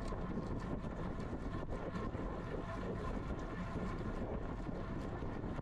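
Steady wind noise on a GoPro's microphone on a road bike riding at speed, with a constant rumble underneath.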